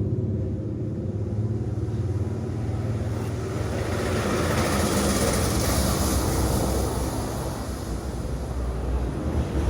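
A motor running steadily, growing louder and hissier for a few seconds in the middle.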